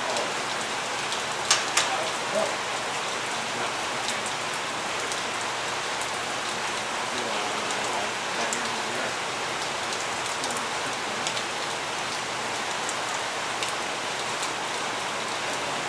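Steady hiss of water, with a few sharp clicks about a second and a half in and light ticking scattered through.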